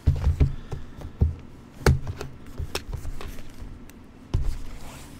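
Irregular knocks and taps of things being handled on a tabletop: a quick cluster of thumps at the start, a sharper click about two seconds in, lighter clicks after it, and another thump near the end.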